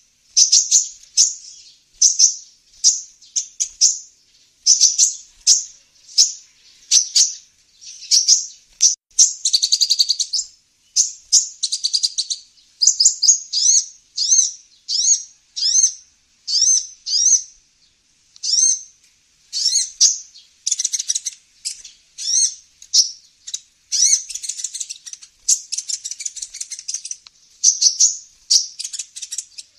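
Bird-lure recording of a 'kolibri ninja' sunbird calling: a fast, continuous string of high, sharp down-slurred chirps with a few brief buzzy trills mixed in.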